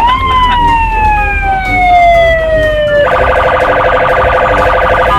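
Electronic police siren: one quick rise and then a long, slow falling wail, switching about three seconds in to a fast, pulsing warble.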